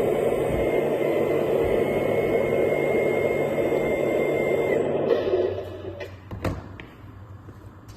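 A 1/14-scale hydraulic RC bulldozer model running, a steady mechanical hum with a thin high whine. It winds down and stops about five and a half seconds in, followed by a single click.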